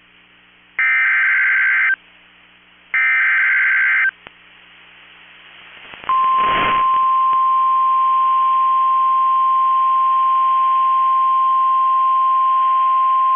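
NOAA Weather Radio Emergency Alert System (SAME) header: the last two of three identical one-second bursts of shrill warbling digital data tones, about a second apart. About six seconds in, after a brief burst of noise, the steady single-pitch 1050 Hz warning alarm tone starts and holds, announcing a new warning.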